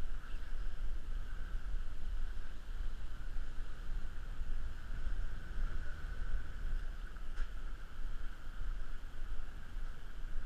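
Outdoor noise on a walking GoPro's microphone: a low, uneven rumble under a constant hiss, with one faint click about seven seconds in.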